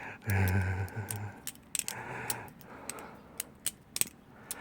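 Balisong (butterfly knife) being flipped: a string of sharp, irregular metal clicks and clacks as the handles and blade swing and knock together, loudest and most frequent in the second half.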